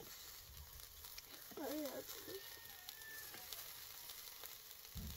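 Meat on metal skewers sizzling faintly over glowing charcoal, with light crackles. A short vocal sound comes about a second and a half in.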